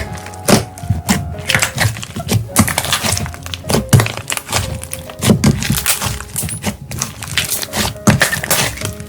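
Slime being squeezed and pressed by hand, making a dense run of sharp crackles and clicks with a louder pop about every second.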